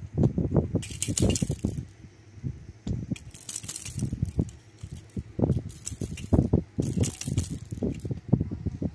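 A baby's toy jingling in short shakes, about four times, over low knocking and rustling.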